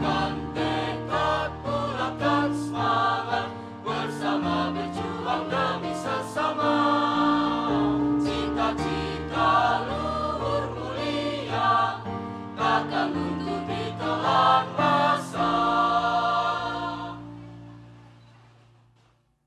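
A school choir singing a march in several voice parts. Near the end the sound fades away into near silence.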